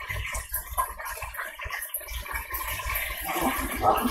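Chicken frying in hot oil inside an electric deep fryer, a steady bubbling hiss. Near the end a fried piece of chicken is set down on paper towels.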